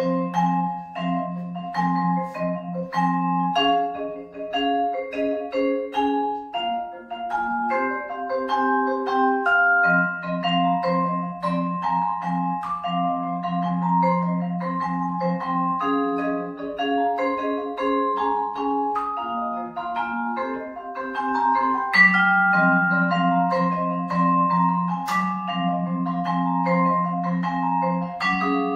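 Solo vibraphone played with four mallets: a running pattern of struck notes over low notes held for several seconds at a time, the bars left ringing into one another.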